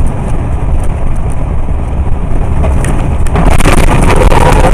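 Road and wind noise inside a moving car as picked up by a dashcam microphone: a loud, steady low rumble that turns louder and harsher about three and a half seconds in.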